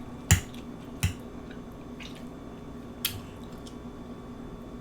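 Close-miked eating: a few sharp, wet mouth smacks and clicks while chewing. The loudest comes about a third of a second in, with others about one and three seconds in.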